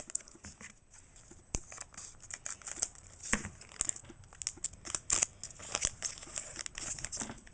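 Foil Pokémon booster pack wrapper crinkling and tearing as it is opened, with the trading cards rustling and a few sharp clicks as they are handled.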